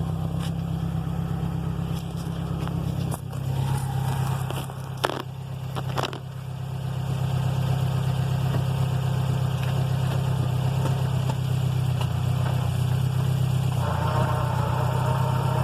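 2005 Subaru WRX STI running with a steady engine drone, two sharp knocks about five and six seconds in, and a higher, rising tone coming in near the end. The car revs high but barely moves, with a grinding sound from the transmission, the sign of a transmission fault.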